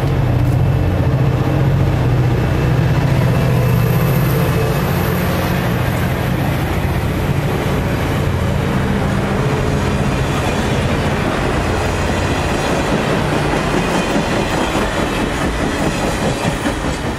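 Caltrain diesel passenger train passing close by. A deep drone eases after about ten seconds, leaving the rumble and clatter of the bilevel coaches' wheels on the rails.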